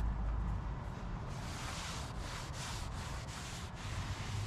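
Rag wiped back and forth over a metal drill press table: soft swishing strokes, about three a second, starting about a second in.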